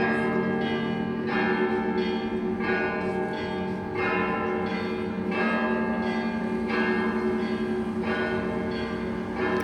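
Russian Orthodox church bells ringing a zvon: bells struck in a steady repeating pattern, about every two-thirds of a second, over the lingering hum of the larger bells.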